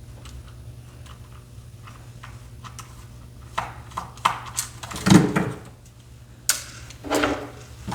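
Small clicks, then louder knocks and rattles from about three and a half seconds in, of a plastic Xbox controller S being handled while the Phillips screws in its back are taken out. A low steady hum runs underneath.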